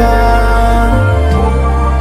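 Music: a slow, held melody over a sustained bass line that changes notes about a second in.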